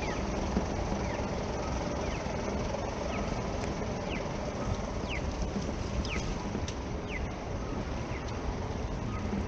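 Street ambience: a steady rumble of road traffic, with a bird giving short chirps that fall in pitch, roughly once a second.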